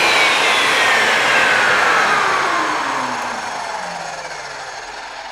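Portable jobsite table saw coasting down after being switched off: its motor whine falls steadily in pitch and fades.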